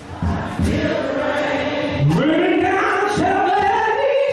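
Gospel music: a choir singing long held notes that slide upward, with low beats underneath.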